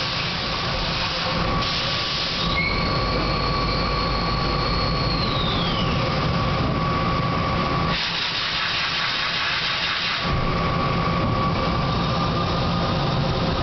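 Takamaz XY-1000 CNC lathe running with a steady mechanical whine. A high-pitched tone falls away about six seconds in, and bursts of hiss come around two seconds in and again from about eight to ten seconds in.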